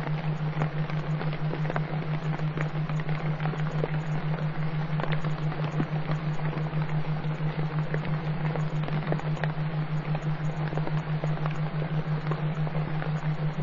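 A subliminal affirmation track's background: a steady hiss sprinkled with soft crackles, over a loud low hum that pulses several times a second.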